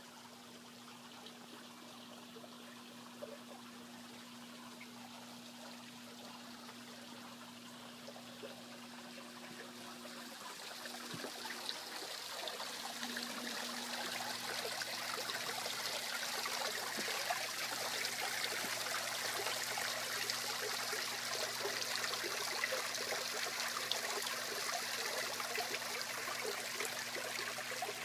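Water running and trickling over the rocks of a small garden waterfall, growing louder about halfway through and then holding steady.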